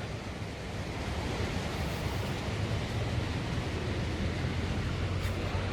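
Ocean surf washing onto a sandy beach: a steady rushing of waves.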